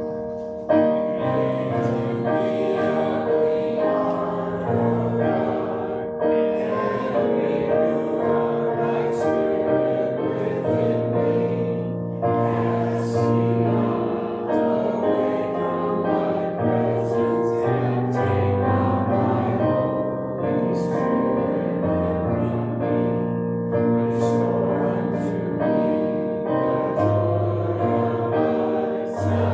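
Congregation singing the offertory with piano or keyboard accompaniment, a slow hymn-like tune in steady held chords.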